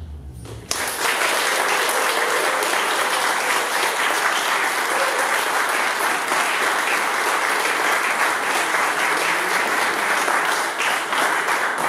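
Small audience applauding, breaking out suddenly under a second in and carrying on steadily until near the end.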